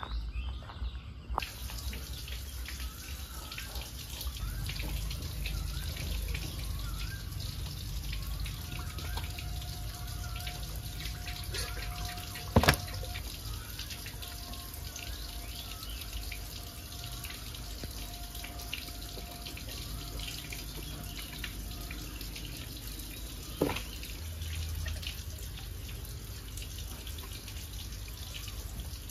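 Water splashing and dripping as raw whole chickens are handled and washed by hand in a plastic basin of water. Two sharp knocks stand out, one about halfway through and one near the end.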